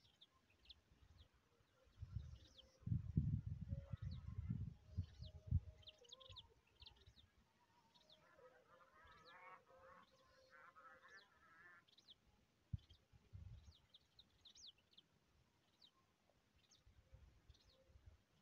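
Birds calling: many short, high, falling chirps, with a stretch of lower, rougher calls around the middle. A low rumble, the loudest sound, runs from about two to six seconds in.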